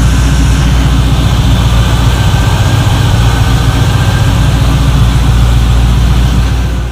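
Chevy 350 small-block V8 in a 1970 Monte Carlo running steadily at idle through headers and a full exhaust, loud and even, just after being reinstalled and started.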